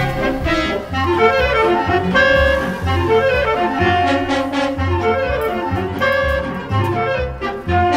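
Background music: a jazzy tune with brass and reed instruments playing over a pulsing bass line.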